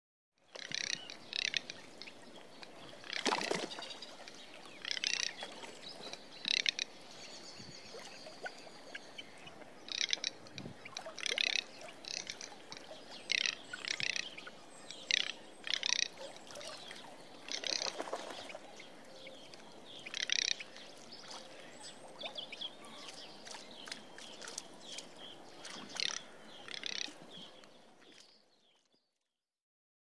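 Garganey calling: short, dry, rattling calls repeated at irregular intervals, one every second or two, over a steady faint hiss, fading out near the end.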